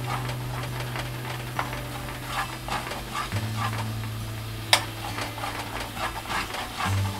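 A spoon stirring and scraping a bubbling, sizzling sauce in a non-stick frying pan, in short strokes a few times a second, with one sharp clack of the spoon against the pan a little past halfway.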